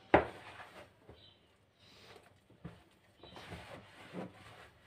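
Hands kneading soft yeast dough in a plastic bowl, with flour being worked in, making irregular pressing and rubbing sounds. There is a sharp knock just after the start.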